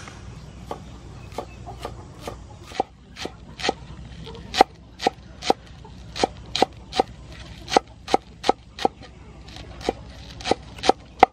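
Cleaver chopping green onions on a wooden cutting board: a run of sharp knocks of the blade on the board, unevenly spaced at about two to three a second.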